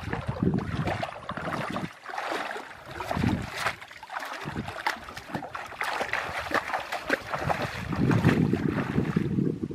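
Water splashing and sloshing in irregular bursts, with wind buffeting the microphone in low rumbles that grow stronger near the end.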